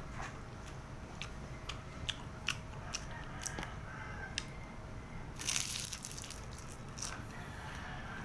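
Biting and chewing crispy fried turon (banana spring roll), the wrapper crackling in sharp little crunches, with one louder crunch about five and a half seconds in.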